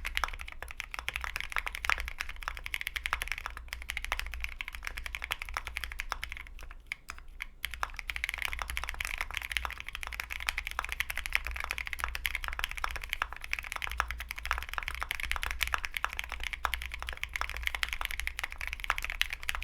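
Continuous typing on a custom 65% AI03 Vega mechanical keyboard with a polycarbonate plate, lubed and filmed Gateron Black Ink V2 linear switches and OSA keycaps: a dense stream of keystrokes, thinning briefly about six to seven seconds in.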